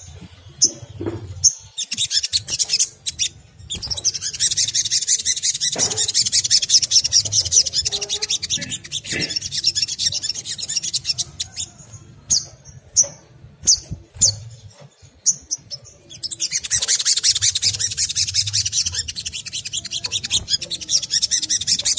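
Olive-backed sunbird (sogon) giving high, rapid chattering twitters in two long runs, broken by short separate chips. This is the excited chatter that keepers play as a lure to set other sunbirds singing.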